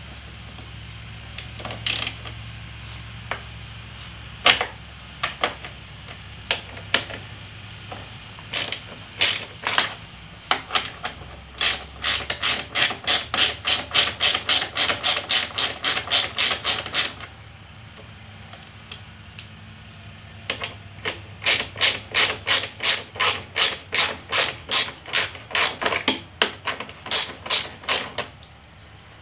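Ratchet wrench clicking as bolts are unscrewed: scattered clicks at first, then two quick even runs of about four to five clicks a second, one around the middle and a longer one near the end.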